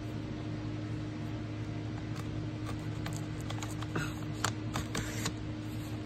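Cutter head of a Fiskars sliding paper trimmer run along its rail through card, with scattered clicks and a scratchy rasp about four to five seconds in, over a steady low hum. The trimmer's blade is wearing out and due for replacing.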